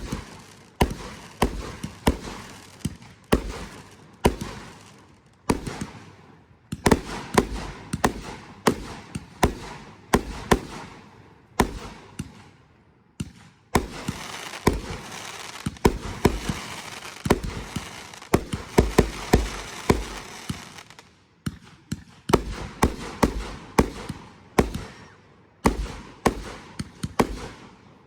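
Fireworks going off in quick succession: sharp bangs, often several a second. In the middle stretch a continuous crackling runs under the bangs.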